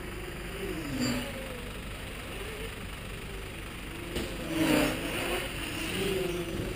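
Mini quadcopter's electric motors and propellers buzzing, the pitch wavering up and down as the throttle changes, with a louder swell about four and a half seconds in.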